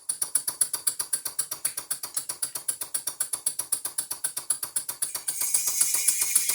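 PM Research No. 4 vertical live steam engine running fast, with an even, rapid beat of about nine strokes a second. About five seconds in, a steady high hiss joins and the sound gets louder.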